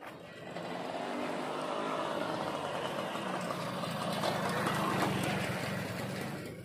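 Small motorcycle passing close by, its engine running. The sound swells over the first few seconds, is loudest about five seconds in, then fades as it moves off.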